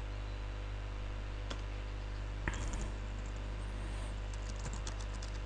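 Computer keyboard keystrokes: a couple of single key presses, then a quick run of taps near the end, over a steady low hum.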